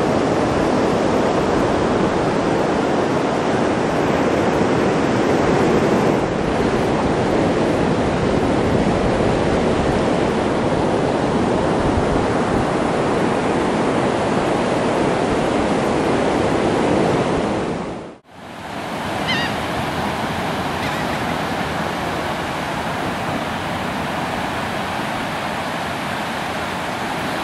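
Ocean surf on a beach: a steady rush of breaking and washing waves. It cuts out briefly about two-thirds of the way through and comes back a little quieter.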